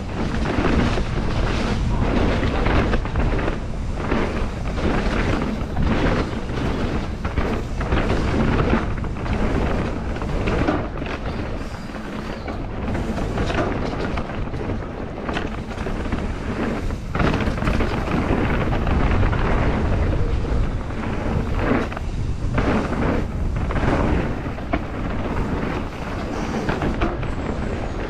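Mountain bike descending a rough trail at speed: tyres rumbling and the bike rattling over rocks and roots, with wind buffeting the microphone. The noise is loud and continuous, full of quick knocks.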